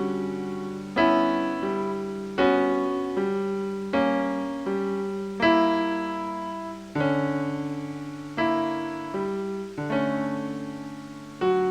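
Slow ambient keyboard music: piano-like chords struck about every second and a half, each ringing and fading before the next.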